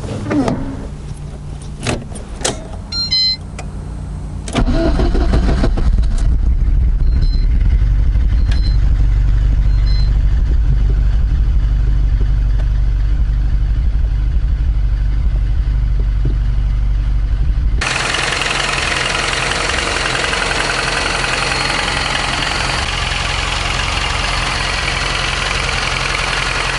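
Lada VAZ-2110's eight-valve engine starting about four and a half seconds in, after a few clicks, then running steadily at idle. Late on the sound changes abruptly to a harsher, noisier engine sound.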